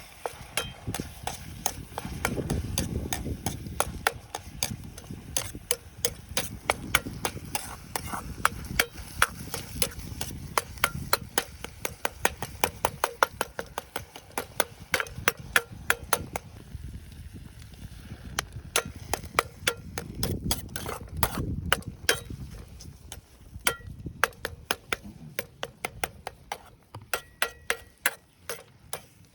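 A rapid, fairly even run of sharp clicks and knocks, two to four a second, over gusts of wind rumbling on the microphone.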